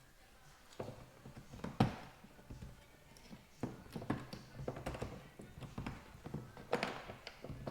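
Irregular knocks, taps and clicks of parts being handled inside a Dodge Grand Caravan sliding door while the handle cable is fitted, the loudest knock about two seconds in.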